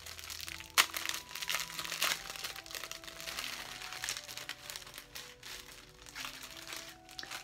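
Clear plastic bag crinkling and crackling as it is handled and worked open, with an irregular run of crackles and one sharp crackle about a second in.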